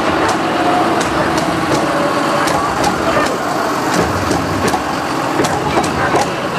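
John Deere tractor's diesel engine running steadily as it pulls a float past at walking pace, with crowd chatter and scattered light clicks.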